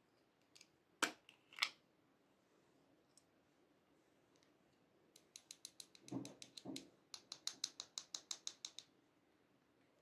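Small hard-plastic candy-shaped pot clicking twice, then tapped in a quick run of sharp ticks, about four to five a second, to shake pink glitter out onto slime, with a couple of duller thuds in the middle of the run.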